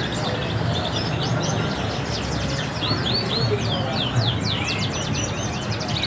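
Caged local canaries chirping and singing, with a fast run of quick sweeping notes about three to five seconds in, over a background murmur of market voices.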